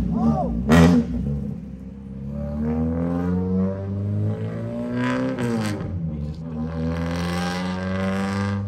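Car engine accelerating, its pitch climbing, then dropping sharply about five and a half seconds in before it settles to a steady cruise, like a gear change. There is a sharp click near the start.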